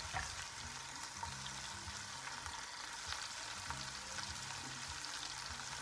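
Mushrooms frying in oil in a pan: a steady sizzle, with a few faint clicks.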